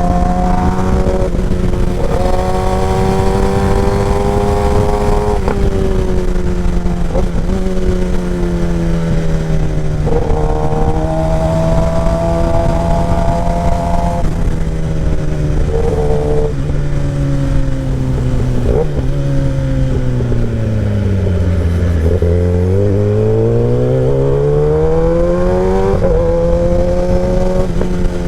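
2017 Kawasaki Ninja ZX-10R's inline-four engine through a short SC Project exhaust, riding under way. It revs up and drops back through several gear changes, eases down to low revs about two-thirds of the way in, then pulls steadily up again.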